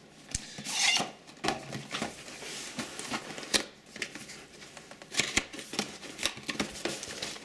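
A cardboard keyboard box being opened and its packing handled: a sliding swish about a second in, then rustling and scattered light knocks and clicks.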